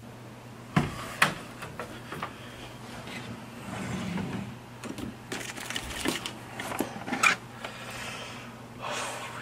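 A wooden dresser drawer being pulled open and socks rummaged through, then a plastic CD case handled: scattered knocks, clicks and rustles over a steady low hum.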